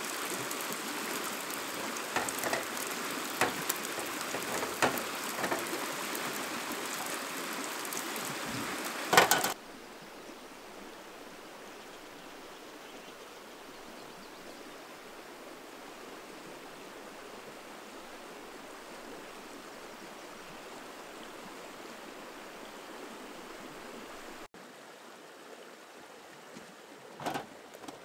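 Rain falling, with scattered sharper drop hits and a loud knock about nine seconds in. It then gives way abruptly to a quieter, steady rush of flowing water, with a couple of small knocks near the end.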